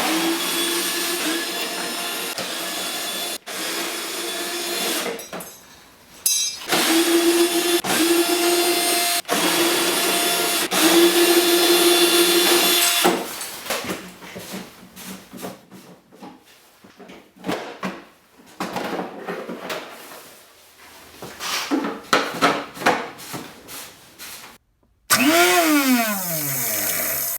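Electric starter motor of an Ariens SS522 snowblower whirring in runs of several seconds, spinning freely without cranking the engine: the starter gear is not engaging the engine gear because the rubber starter drive pinion is missing. After the runs come irregular shorter sounds.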